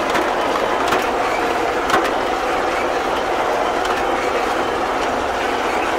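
Cab noise of a Fortschritt E-series self-propelled windrower mowing: the engine runs at working speed while the header's reciprocating cutter-bar knife clatters steadily, with a couple of sharp clicks about one and two seconds in.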